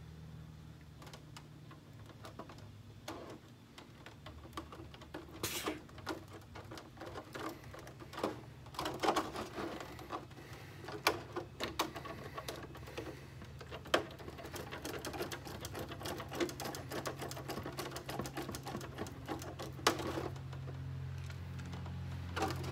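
Irregular clicks, taps and rattles of small screws and a hand hex driver working on a plastic RC car body and splitter as screws are fitted, over a steady low hum.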